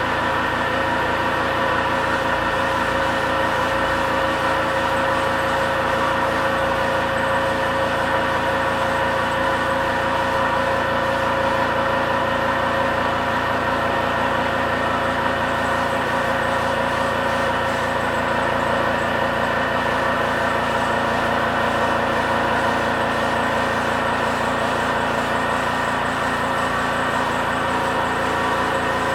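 Homemade air compressor running steadily, its motor giving an even hum with several steady tones and no change in speed.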